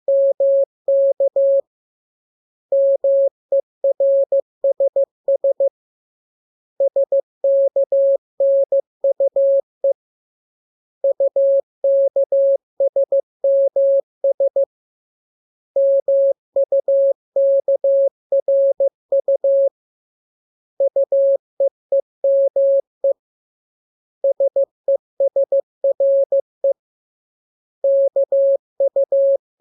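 Morse code practice: a single steady tone keyed on and off in dots and dashes, sent in groups of characters with pauses of about a second between them, made up of the lesson's letters K, M, U, R, E, S and N.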